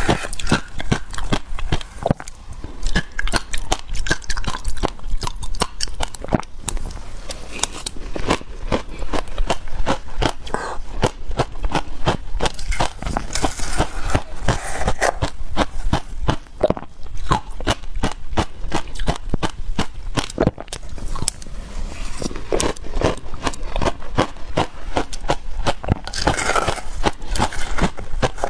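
Crushed passion-fruit ice being bitten and chewed: a fast, unbroken run of crisp crunches and crackles, with a wooden spoon scraping and scooping through icy slush in a glass jug.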